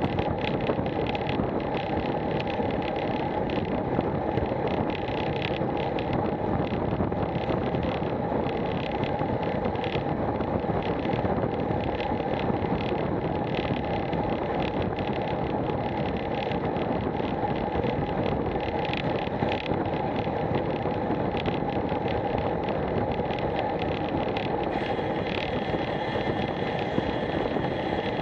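Steady rush of wind over a bike-mounted action camera's microphone, with tyre noise on tarmac, from a road bike riding at about 20 mph.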